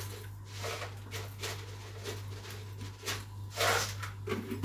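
Knife cutting a row of slits into a sheet of dough and tapping the counter beneath it, a short soft stroke about every half second.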